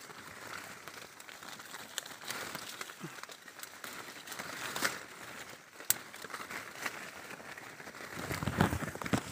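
Coffee bush leaves and branches rustling and crackling close to the microphone, with a few sharp clicks, the sharpest about six seconds in, and a low rumble near the end.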